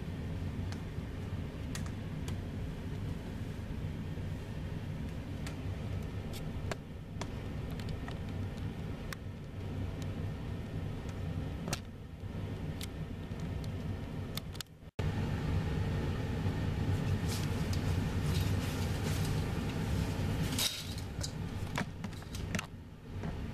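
Steady low rumble of distant jet airliners, with scattered small clicks; a short cut about two thirds of the way through, after which the rumble is louder.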